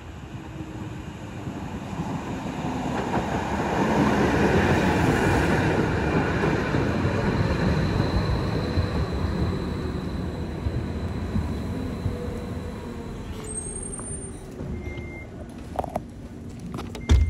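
Badner Bahn electric light-rail train running into the station: the rumble of wheels on rails and motors swells as it approaches and passes close, with a faint high squeal, then dies away gradually as it slows. Near the end come a few short high beeps, some clicks and a sharp knock.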